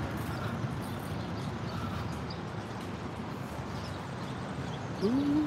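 Street ambience of steady distant traffic as a passing motorcycle's engine fades away, with faint chirps above it. Near the end a short low call rises in pitch and then holds.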